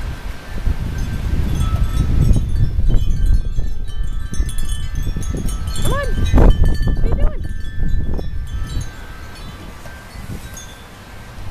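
Gusting storm wind buffeting the microphone, with wind chimes ringing through it. Two short cries that rise and fall in pitch come about six and seven seconds in.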